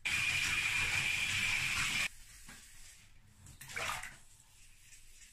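Water in a bathtub, a loud steady rush for about two seconds that cuts off suddenly. About four seconds in comes a short swish as a plastic motorcycle airbox is scrubbed with a soapy sponge.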